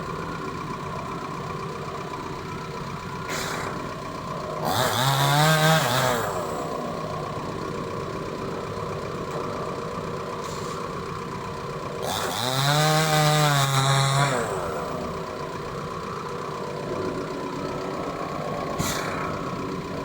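Two-stroke chainsaw idling, revved to full throttle twice, about five and about twelve seconds in, each time for a second or two before dropping back to idle.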